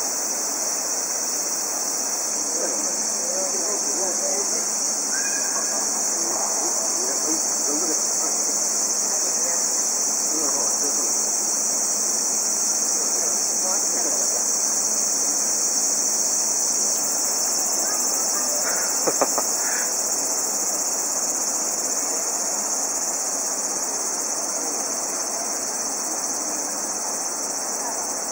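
Steady, high-pitched chorus of insects singing without a break.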